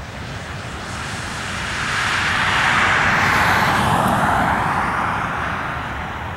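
A vehicle passing close by: a noisy rush that swells to a peak about three seconds in, then drops in pitch and fades, over a steady low rumble.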